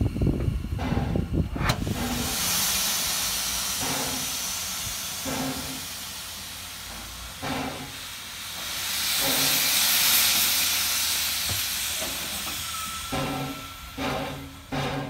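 Steam hissing from a standing C17 steam locomotive, swelling to its loudest about ten seconds in and dying away near the end, where short repeated pulses follow.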